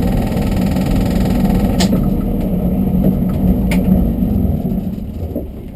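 A car engine idling steadily, then dying away near the end, with a couple of faint clicks about two and four seconds in.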